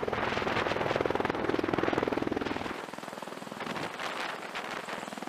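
V-22 Osprey tiltrotor hovering in helicopter mode, its rotors beating in a fast, even pulse. Just under three seconds in, the deep rumble drops away and the beating goes on thinner and quieter.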